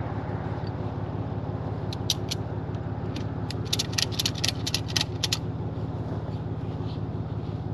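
Tow truck engine idling steadily, with sharp metallic clinks and rattles of strap and wheel-lift hardware being fitted: a couple about two seconds in, then a quick run from about three and a half to five and a half seconds.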